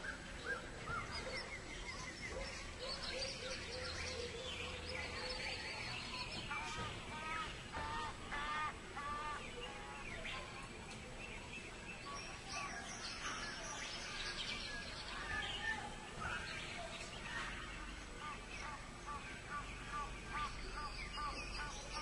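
A chorus of many birds calling, a busy mix of chirps, whistles and runs of repeated calls overlapping one another.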